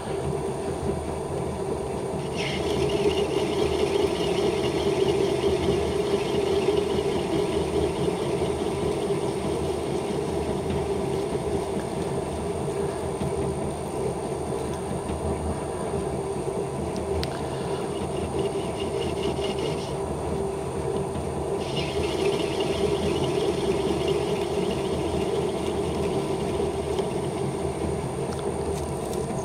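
Atlas 10-inch metal lathe running steadily while a tool turns down the head of a steel carriage bolt. A higher-pitched cutting hiss sets in about two seconds in, breaks off briefly twice, and comes back for most of the second half.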